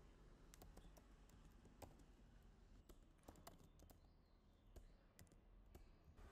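Faint computer keyboard typing: scattered, irregular keystrokes.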